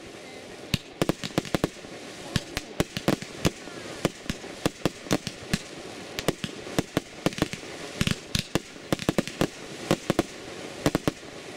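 Fireworks display: aerial shells bursting in a rapid, irregular run of sharp bangs and pops, several a second, with no let-up.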